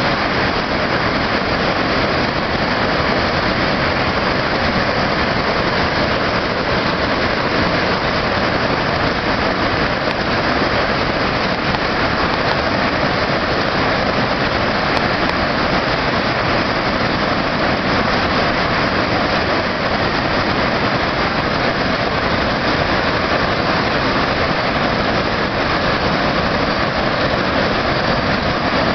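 Waterfall roaring: falling water making a loud, steady rushing noise.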